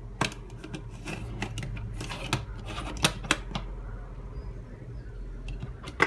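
Metal staple pusher rod of a Stanley TRA700 staple gun being pulled out of the magazine: a run of metallic clicks and scrapes, the sharpest near the start and about three seconds in, with one more click near the end.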